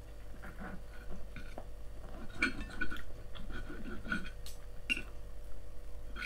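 Knife and fork scraping and clinking on a plate while cutting food, with a busy run of clinks from about two and a half to five seconds in and a sharp clink at the end.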